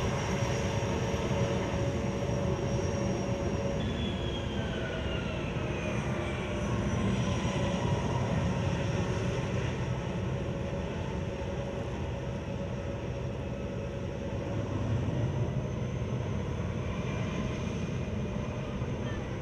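Twin General Electric TF34 turbofan engines of A-10 Thunderbolt II attack jets taxiing: a steady jet whine over a low rumble. About four seconds in, a high whine glides down in pitch over a few seconds.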